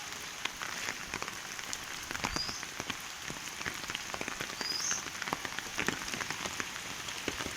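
Heavy rain falling: a steady hiss with many sharp drop impacts pattering on surfaces.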